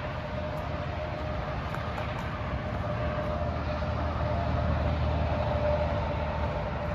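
Highway traffic: a steady rumble and hiss of passing vehicles with a faint steady whine, swelling a little in the second half and then easing.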